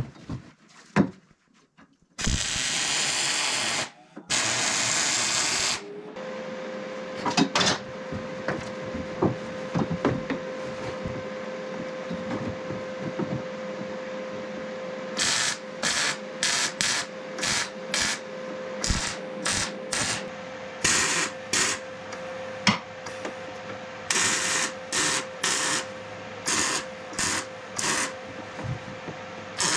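Arc welding on steel roll-cage tubing: two welds of about two seconds each near the start. After that a steady hum with scattered crackles, then a run of short welding bursts about two a second, the tubes being stitch-welded in short pulses.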